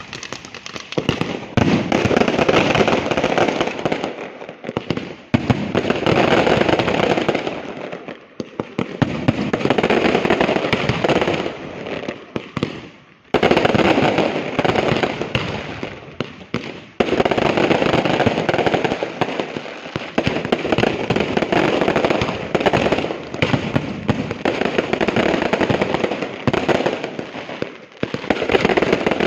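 Large aerial fireworks display (a Valencian castillo): dense, rapid volleys of shell bursts and crackling follow one another in waves a few seconds long. Several brief lulls break the volleys.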